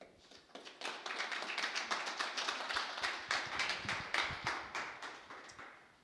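Audience applauding, swelling within the first second and fading away near the end.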